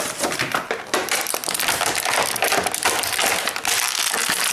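Clear plastic packaging crinkling and crackling continuously as hands work a toy figure free of it.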